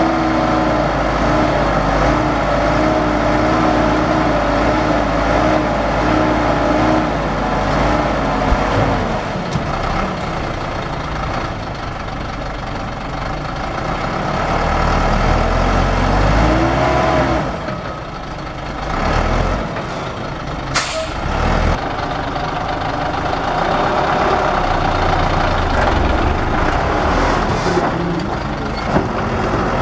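Dump truck engine running at raised, wavering revs while the tipper bed is raised to dump soil, the revs rising and falling again about halfway through. A short sharp hiss of air about two-thirds of the way through.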